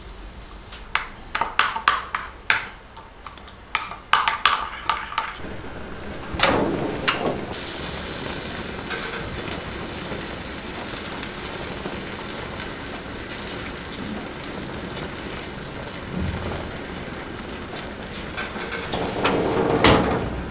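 A spoon clinks against a glass bowl for the first few seconds while mixing olive oil into minced garlic. Then chicken fat sizzles and spits steadily in a hot oven as the chicken is basted. Near the end the oven door closes.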